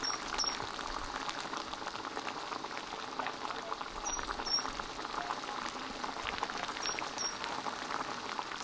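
Thick sweet-and-sour sauce with vegetables and meat bubbling at a boil in a wok over a fire: a steady patter of small pops and bursting bubbles.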